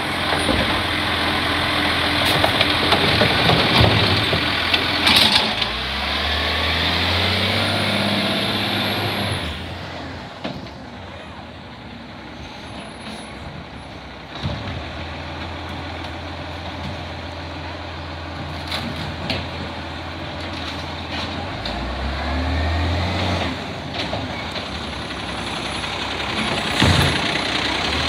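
Side-loader garbage truck collecting recycling: the tipped wheelie bin empties into the hopper with the lifting arm's hydraulics working, then the diesel engine revs up as the truck moves off and runs steadily before revving again as it pulls up at the next bin, with a couple of sharp hisses from the air brakes.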